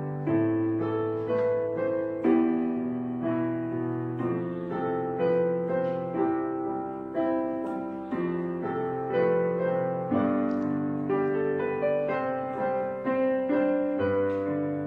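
Piano background music: notes and chords struck about once a second, each fading before the next.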